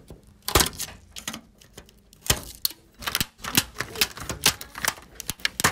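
Flat metal scraper prying the clear plastic lens caps off the LEDs of a TV backlight strip: a string of irregular sharp clicks and taps, the loudest about half a second in and just past two seconds in.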